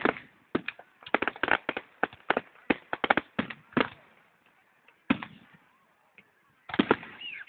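Fireworks going off: a quick run of sharp bangs and cracks for about four seconds, then a few single bangs with gaps between them.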